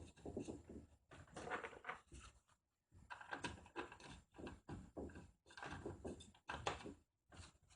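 Scattered knocks, clicks and rustling from hands handling a washing machine motor and starting its mounting bolts by hand.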